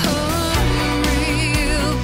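Music with a singing voice, a wavering sung melody over held low notes.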